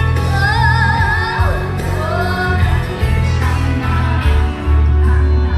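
Music with a singing voice, the sung melody wavering in pitch over a heavy bass line.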